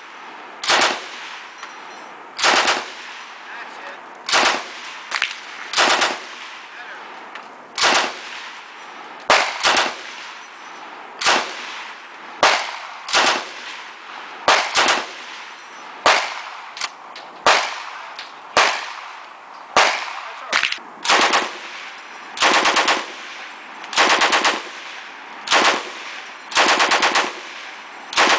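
M60 machine gun firing 7.62×51mm NATO in short bursts of automatic fire, about one burst every second or two, each a quick string of shots; the bursts grow somewhat longer near the end.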